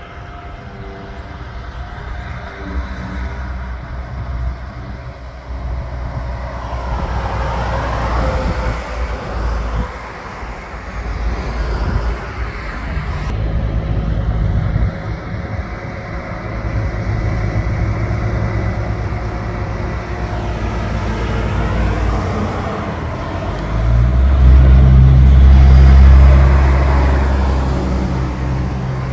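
Road traffic with heavy diesel trucks going by: engine and tyre noise rise and fade as vehicles pass. Near the end, a long-hood semi tractor pulling a dry-van trailer passes close, and its deep diesel engine drone is the loudest sound.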